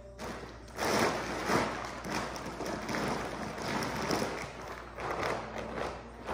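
Rustling and crinkling of a heavy plastic sack being gripped and lifted off the floor. It starts about a second in and goes on unevenly, with small crackles throughout.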